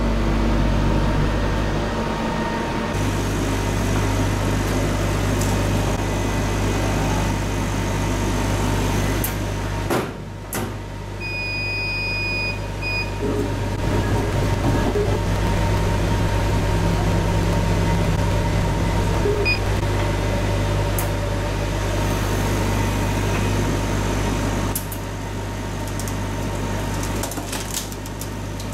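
Steady electrical hum of a CO2 laser cutter's exhaust fan and pumps running. A few short high electronic beeps come about a third of the way in, and light knocks near the end as cardboard sheets are laid on the bed.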